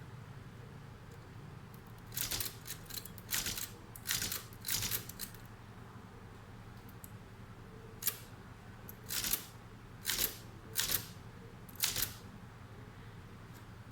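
Old manual typewriter clacking as it is handled: about a dozen short, sharp mechanical clacks in irregular groups, some single and some in quick pairs.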